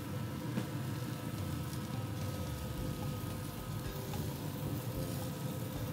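A Yoder YS640 pellet grill running hot for direct grilling: a steady rumble and hiss of its fire and fan, with faint sizzling from steaks on the grate and a few light crackles.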